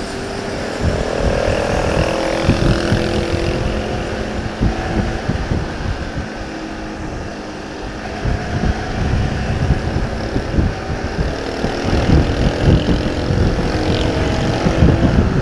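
Motorcycle engine running while riding, its tone drifting up and down a little with the throttle, under wind buffeting the microphone, which gets gustier in the last few seconds.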